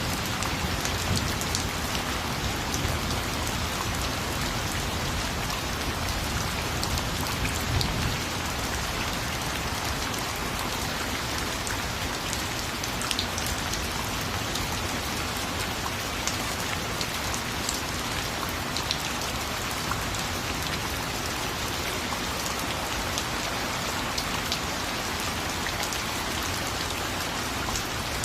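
Steady rain falling and pattering on surfaces, with scattered individual drops ticking through the constant hiss.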